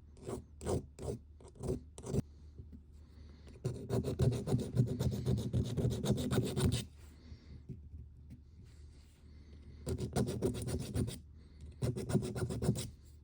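Small hand file deburring the edges of a freshly milled key slot in a ball valve's ball. A handful of single strokes comes first, then about three seconds of quick back-and-forth filing, then two shorter runs of strokes near the end.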